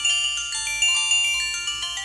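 A downloaded ringtone playing on a Samsung SGH-T629 mobile phone: a busy melody of short, high-pitched notes following one another several times a second.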